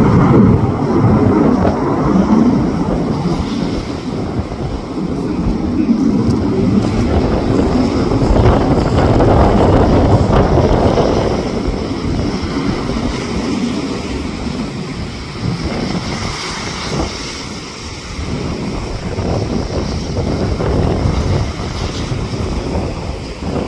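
Jet aircraft roaring, swelling and fading as it flies over, with wind buffeting the microphone.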